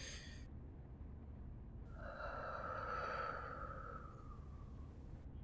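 A woman's breath: a short breath at the very start, then about two seconds in a long nasal sigh that trails downward in pitch and fades by about four seconds.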